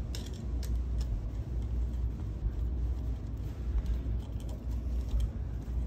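Hand screwdriver turning the screw of a metal clamp bracket on a pump mount: a few faint clicks and scrapes over a steady low rumble.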